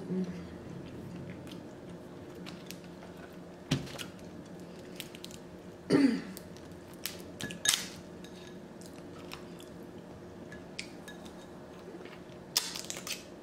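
Close-miked chewing of saucy seafood, with scattered wet clicks and a few louder sharp cracks as snow crab legs are snapped apart by hand, and sucking and smacking near the end as meat is pulled from a crab leg.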